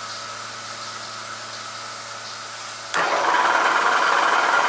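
A machine hums steadily. About three seconds in, a much louder, steady cutting noise starts abruptly: a drill boring through a snapped-off, rusted steel exhaust manifold stud.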